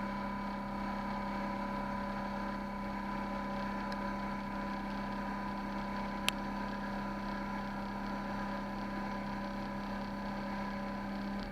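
CNC lathe running steadily with a constant hum and whine, cutting off sharply at the end; a single sharp click about six seconds in.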